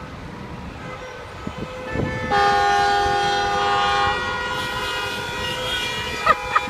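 A vehicle horn blown in one long, steady blast starting about two seconds in, loudest for the first two seconds, then held more softly for about two more, over low street traffic noise.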